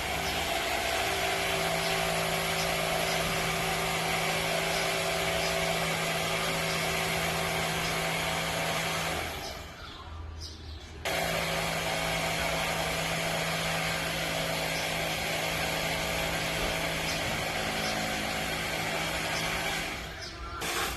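Electric rotary hammer (martelete) running in two long bursts of about nine seconds each, with a short stop near the middle.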